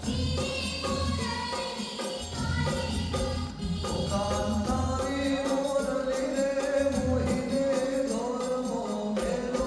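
Indian folk song accompanying a folk dance: group singing over a steady, rhythmic beat of drums and jingling percussion.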